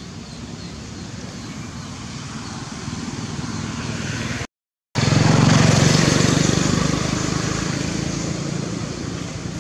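Engine of a passing motor vehicle, a steady drone that builds slowly. The audio drops out for a moment about halfway, then the engine is at its loudest and gradually fades.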